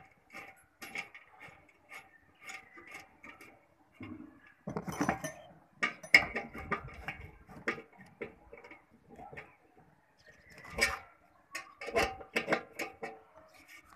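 Screwdriver turning a bolt in a metal antenna mounting bracket: short ticks about twice a second, then louder clattering of metal on metal about halfway through and again near the end.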